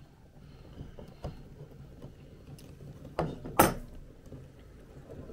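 Quiet room tone with a few faint ticks, then two sharp knocks in quick succession a little over three seconds in.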